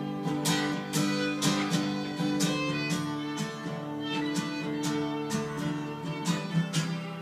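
Acoustic guitar strummed at a steady pace, about two strums a second, with a fiddle playing long held notes over it: an instrumental break in a folk song.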